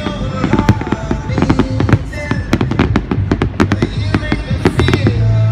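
Fireworks bursting: a rapid series of sharp bangs and crackles from aerial shells, with music playing underneath.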